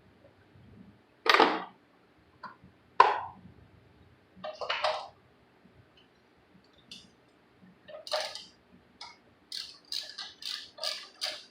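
Metal hand tools clinking and knocking as they are handled, a few separate knocks and then a quick run of about seven sharp clinks near the end.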